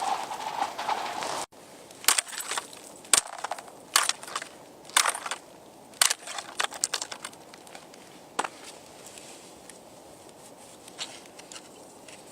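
A steady scraping hiss cuts off suddenly about a second and a half in. It is followed by sharp, irregularly spaced cracks and snaps from the ice of a frozen lake, several strong ones with fainter crackles between.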